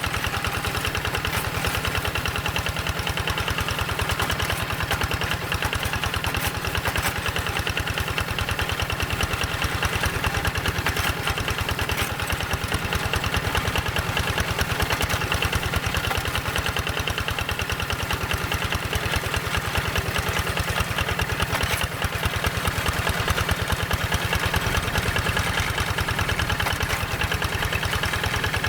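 Single-cylinder diesel engine of a walking hand tractor chugging steadily under even load while ploughing a wet rice paddy.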